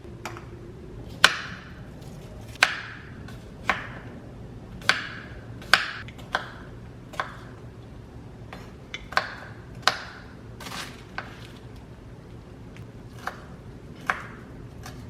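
Kitchenware knocking and clinking: about a dozen sharp strikes at irregular intervals, some ringing briefly, over a low steady hum.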